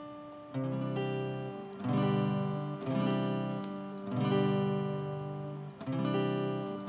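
Acoustic guitar strummed five times, a second or so apart, each chord left to ring. It changes between a G with D and G on the top two strings at the third fret and a C add 9.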